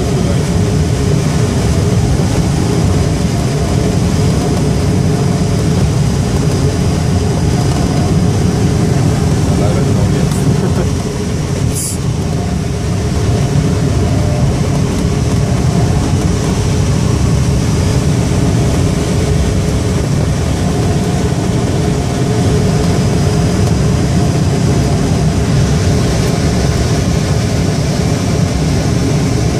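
Steady, loud rumble of rushing air around a glider's cockpit in flight, buffeting the microphone. The noise dips briefly near the middle, with one short click.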